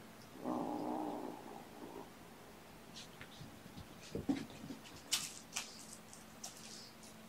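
Tabby kitten growling low for about a second and a half, a possessive growl over the ball he is guarding. Near the end come a few sharp clicks and rattles.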